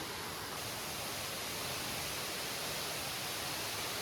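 Steady rushing of a narrow waterfall dropping straight down between rock walls into a small pool.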